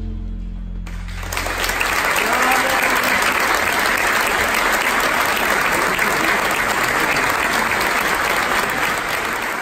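The band's last chord dies away, and about a second in a concert audience breaks into steady applause that carries on.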